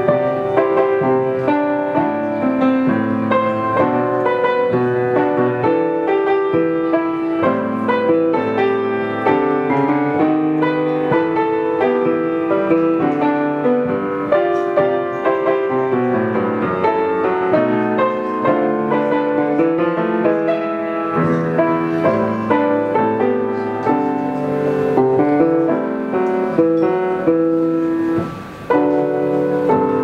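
A 19th-century Schröder grand piano played solo, a continuous run of notes and chords. Near the end it breaks off briefly, then comes back in with a strong chord.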